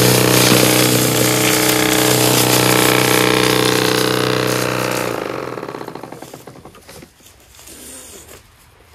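PowerSmart 80V brushless cordless single-stage snowblower running loud and steady, its auger paddles churning up dry leaves. About five seconds in the handle is released, and the motor and auger wind down to a stop.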